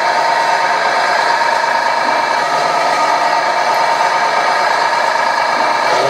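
Simulated diesel engine sound from a 1/14 scale RC Komatsu D65PX bulldozer's sound module, idling steadily after start-up.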